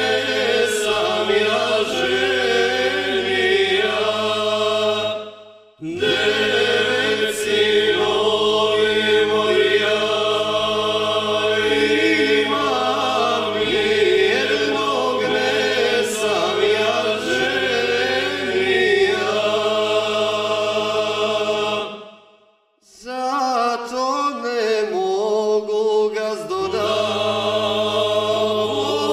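Background music of choral chanting: several voices holding long notes over a steady low drone. It breaks off briefly twice, about six seconds in and again about twenty-three seconds in.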